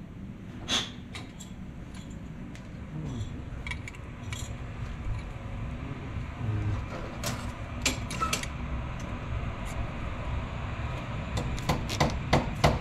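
Metal valve seat cutting tools clinking and knocking as cutters and pilots are handled on a cylinder head, a few sharp clicks scattered through. Near the end, a quick run of squirts from a spray bottle of Windex used as cutting fluid.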